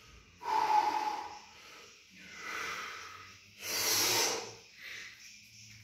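A man's three loud, forceful breaths, each about a second long and hissing through the mouth or nose, taken while he psyches up before a heavy deadlift.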